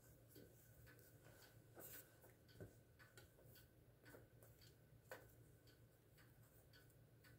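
Near silence over a low steady hum, with faint, irregular rustles and soft clicks of a synthetic wig being handled and tugged into place on a mannequin head.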